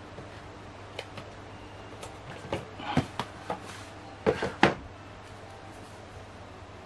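Handling noise from a Redmi Pad SE tablet and its cardboard screen-protector packet being moved about on a desk: scattered light taps and clicks, with a cluster of sharper knocks in the middle.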